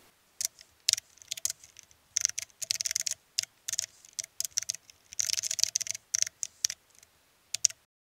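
Computer keyboard typing: irregular runs of rapid keystrokes with short pauses between them, cutting off abruptly near the end.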